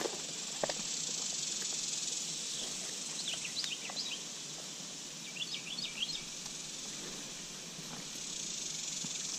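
Outdoor ambience: a steady high hiss of insects, with a bird giving two short runs of quick chirps around the middle.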